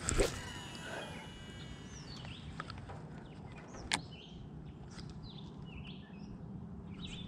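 A fishing cast: a swish of the rod with line running off the spinning reel, then a single sharp click about four seconds in. Birds chirp now and then over the quiet background.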